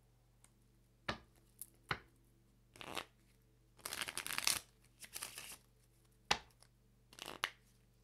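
A tarot deck being shuffled by hand: several short bursts of cards riffling and sliding against each other, with a few sharp knocks of the cards, two in the first two seconds and one about six seconds in.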